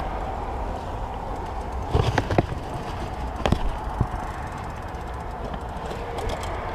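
A few sharp metallic clicks from a Cannondale road bike's gear mechanism being worked by hand while its shifting is checked: a quick cluster about two seconds in, then two more about a second later. Under them is a steady rush of passing road traffic.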